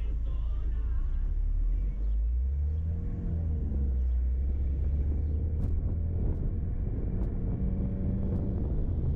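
A car driving along a highway: a steady low engine and road rumble, with a few faint clicks in the middle.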